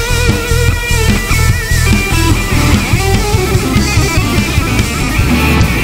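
Electric guitar solo on a Fender Stratocaster over a rock drum kit and bass. Held lead notes waver with vibrato in the first couple of seconds, then give way to quicker runs.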